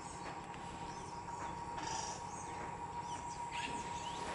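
Wild birds chirping and calling in short bursts over a steady high-pitched hum.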